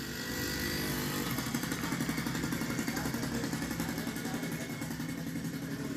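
An engine running steadily in the background.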